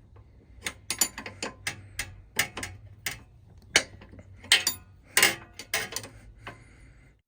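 Hand tools clicking and clinking on metal in irregular, sharp strokes, a wrench at work loosening the old rear brake light switch from the brake line.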